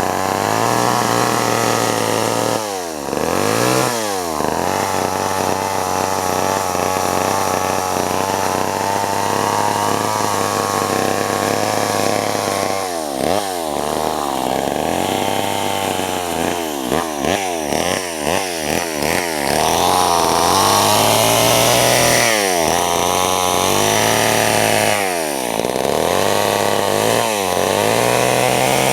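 Vintage Homelite two-stroke chainsaw running and being revved again and again: held at high speed for long stretches, a run of quick throttle blips past the middle, then slower rises and falls in engine speed.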